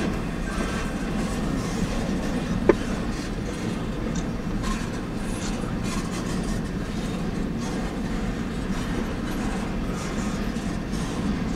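Piggyback freight train cars rolling past: a steady rumble of steel wheels on the rails, with one sharp knock a little under three seconds in.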